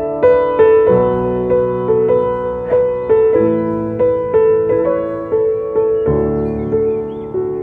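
Background music: a gentle piano melody of repeated notes, about two a second, over slow low bass chords.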